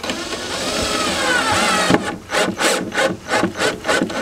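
Cordless drill driving a screw through a plastic broom-holder clip into a plywood table. The motor runs steadily for about two seconds with a slightly falling whine, then gives a string of short bursts, about four a second.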